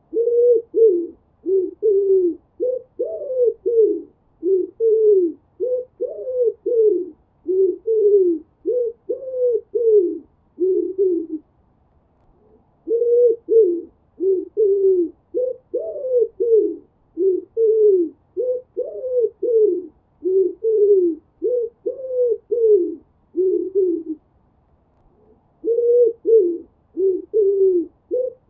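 Pigeon cooing over and over: short, low coos follow one another in quick succession, with two brief pauses, one near the middle and one a few seconds before the end.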